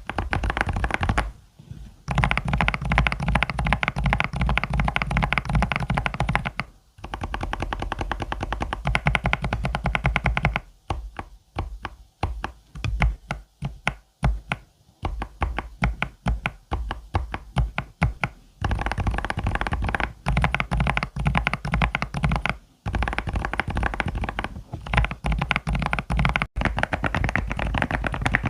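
Fast typing on a mechanical keyboard with HMX tactile switches: dense, rapid keystroke clacks, broken by a couple of short pauses. In the middle the typing turns slower, with separate keystrokes.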